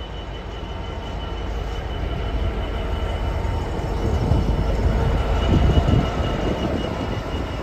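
A GBRf Class 66 diesel locomotive (EMD two-stroke V12) and its Drax biomass hopper wagons passing close by, a heavy rumble of wheels on rail with a thin steady high whine. The rumble builds to its loudest about four to six seconds in.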